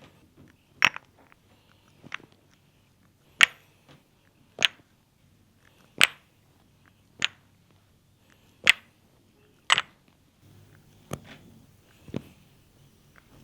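A series of about ten sharp smacks on the body from hands-on massage and cupping work, evenly paced at roughly one every 1.2 s, some louder than others.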